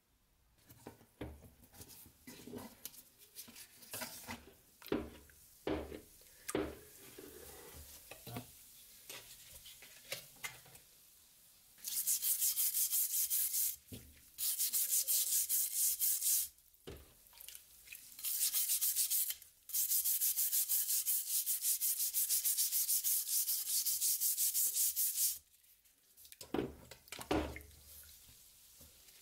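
Gloved hands handle a rusty steel knife blade in a tub of liquid, making small splashes and knocks. About halfway through, a brush starts scrubbing the wet blade in quick, rasping strokes. The scrubbing comes in long spells with short pauses and stops near the end.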